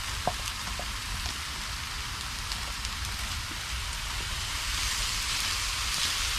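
Food frying in a hot chef pan, a steady sizzle that grows a little louder about five seconds in, with a couple of light taps near the start.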